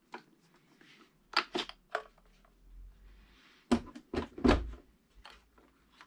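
Hard plastic clicks and knocks as the dust bin of a Coredy R750 robot vacuum is taken out and handled. There are several sharp snaps, the loudest a little past the middle, with low thuds between them.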